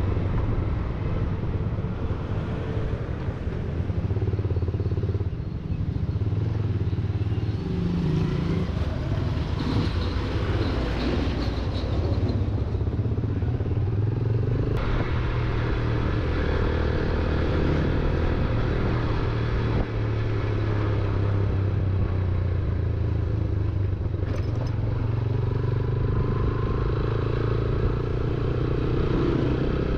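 Motorcycle engine running steadily while being ridden, its pitch rising and falling a little with the throttle.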